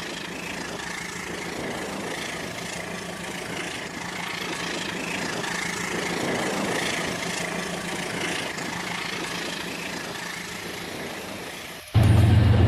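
Battery-powered Rail King toy train running steadily on its plastic track, a continuous motor whir with wheel rattle.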